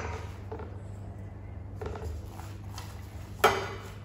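Kitchen handling noises of chopped walnut filling being scattered and spread by hand over filo pastry in a metal baking tray, with one sharp knock, the loudest sound, about three and a half seconds in.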